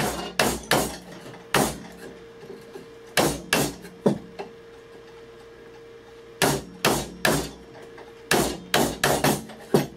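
Chisel being struck again and again to chop a mortise in a block of wood. The blows are sharp and come in short groups, with a pause of about two seconds in the middle.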